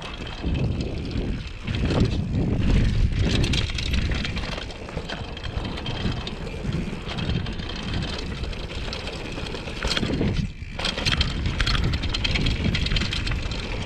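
A 2014 Giant Glory downhill mountain bike descending a dirt trail: wind buffets the action camera's microphone over the rumble of knobby tyres on dirt and the clatter of the bike over rough ground, briefly quieter about ten and a half seconds in.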